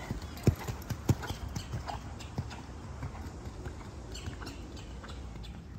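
A horse's hooves striking sand arena footing at a trot, a steady beat of hoofbeats that is loudest in the first second or so, as the horse passes close.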